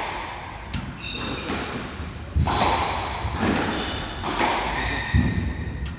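Squash rally: the ball is struck hard by racquets and smacks off the court walls, a string of sharp hits roughly one a second, echoing in the enclosed court.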